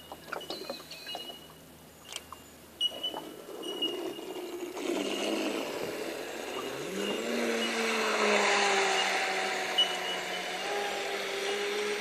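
Radio-controlled speedboat's motor comes in about five seconds in and runs with a hiss. Its pitch rises about seven seconds in as the boat speeds away, then holds steady. Before that, a few knocks and clicks of handling.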